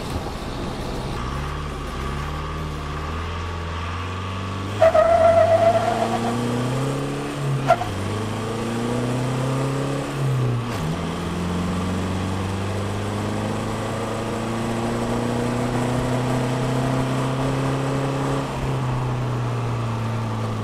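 Tuned 3-litre four-cylinder turbo diesel of a 2009 Holden Colorado manual ute, heard from inside the cab on a full-throttle 0–100 km/h run. The revs are held up at the start. After the launch it pulls through the gears with two quick gear changes, then a long steady climb in pitch, and lifts off near the end. A loud squeal comes at the launch, about five seconds in, with a short chirp again at the first gear change.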